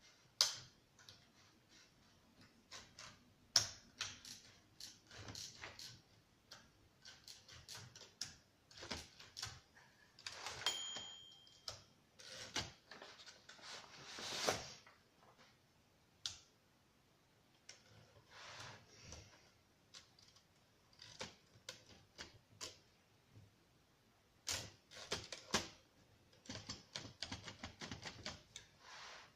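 1937 Rheinmetall portable typewriter being typed on: irregular keystrokes clacking in quick runs with short pauses, with two longer sounds around ten and fourteen seconds in and one short ring about eleven seconds in.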